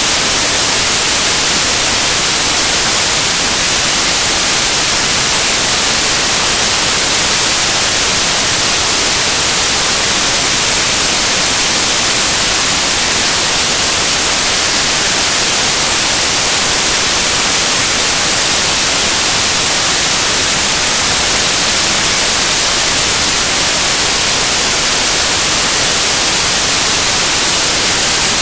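Loud, steady static hiss like white noise, strongest in the high range, unchanging throughout, with nothing else audible: a noise-filled soundtrack in place of programme audio.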